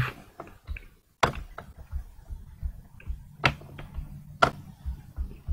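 A few sharp clicks of computer keys and mouse buttons, spaced a second or more apart, over a low steady hum.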